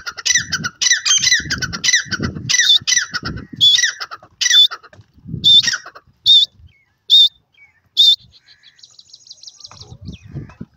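Grey francolin (white teetar) calling: a rapid run of loud, high, squawky notes for the first half, thinning to single notes about a second apart, then a faint quick series of high notes.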